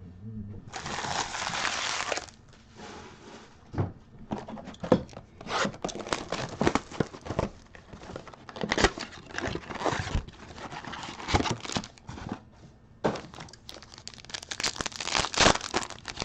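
Trading-card pack wrappers being torn open and crinkling as the cards are handled. There is a long tearing rush about a second in, crackles and clicks through the middle, and another crinkling rush near the end.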